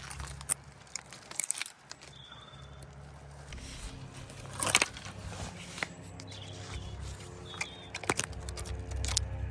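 Twigs and branches crackling and snapping in irregular clicks as someone pushes through dense bushes, with a sharper crack about halfway through. A few short bird chirps come in between.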